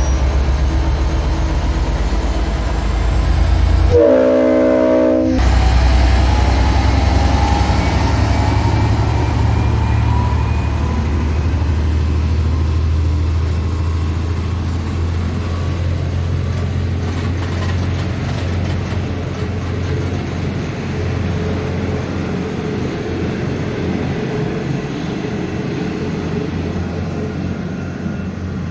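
N class diesel-electric locomotive N459 pulling away with its train, the engine running under power with a deep steady drone. About four seconds in its horn sounds once for just over a second, several tones at once. Then the carriages roll past and the sound slowly fades as the train draws away.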